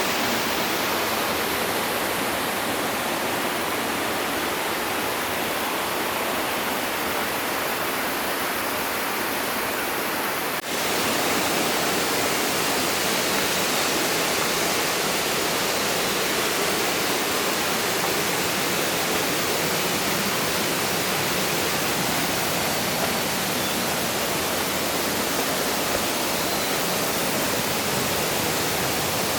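Steady rush of a mountain stream's water tumbling over rocks, with a momentary break about ten seconds in, after which the rushing continues.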